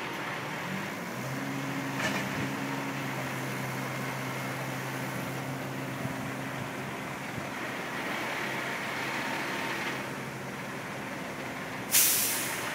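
Crane truck running, with a steady low mechanical hum that sets in about a second in. Near the end comes a sudden loud hiss of released air that fades quickly.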